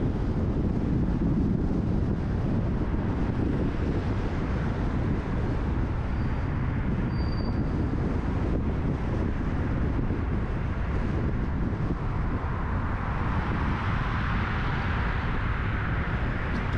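Car driving, with steady road and wind noise over a deep rumble. A hissing swell builds and fades about three-quarters of the way through.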